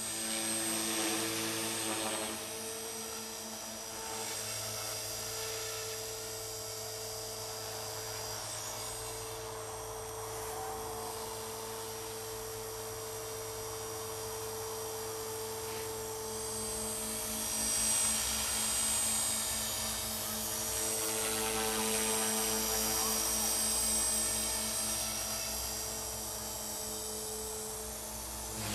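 Align T-Rex 450 Pro electric RC helicopter in flight: a steady high whine from its motor and gears over the buzz of the rotor blades, growing louder and softer as it moves about.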